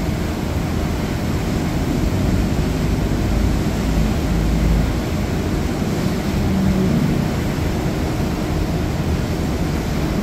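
Steady rush of wind and churning wake water along the side of a moving cruise ship, with a low engine drone from a small boat running close alongside. A low rumble swells briefly about four seconds in.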